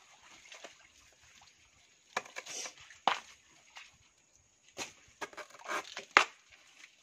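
Bolo knife chopping and tearing into fibrous banana stalks and leaf litter on muddy ground: irregular crunching strikes in clusters from about two seconds in, the sharpest one near the end.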